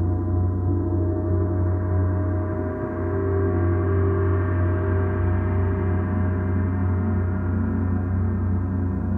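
A gong played continuously in a sound bath, a sustained dense shimmer of many overlapping tones with a strong low hum. The tones swell slightly around the middle without any distinct strike standing out.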